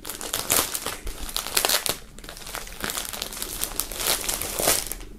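Clear plastic bag crinkling as a folded T-shirt is pulled out of it by hand: a continuous run of irregular crackles.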